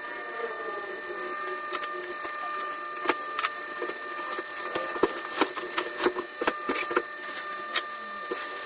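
A run of sharp clicks and light knocks from hard parts being handled, most of them in the middle of the stretch, over a steady faint high whine.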